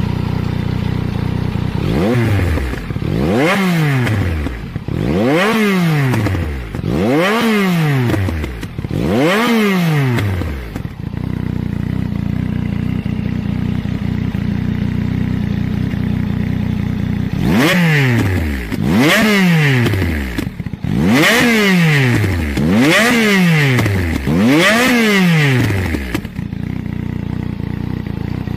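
Yamaha XSR900's 847 cc inline-three engine revved in place through aftermarket LeoVince twin mufflers: five quick throttle blips, each rising sharply and falling back to idle, then several seconds of steady idle, then five more blips before it settles to idle again.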